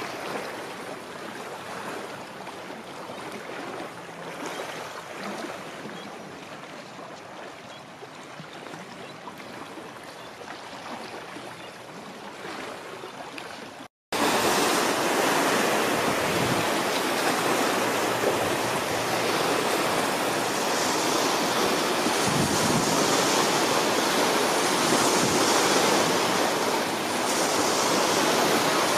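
Small waves lapping on a lake. After a sudden cut about halfway, a louder, steady rush of water and wind while a speedboat crosses the lake trailing a wake.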